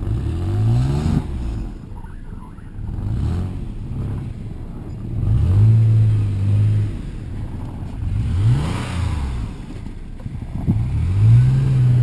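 Toyota FJ Cruiser's 4.0-litre V6 revving up and easing off about five times, one rev held steady for over a second midway, as it works to pull out of deep snow.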